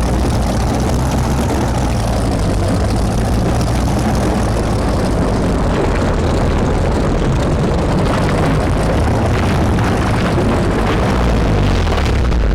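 A loud, steady engine roar with a deep, constant low hum, holding evenly throughout.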